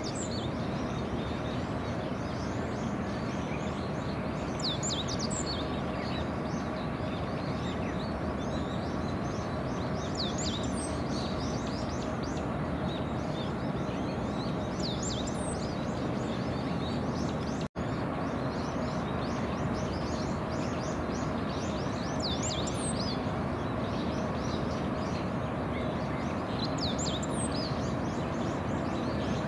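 Steady distant city and industrial hum across the harbour, with small birds giving short high chirps about every five seconds. The sound cuts out for an instant about two thirds of the way through.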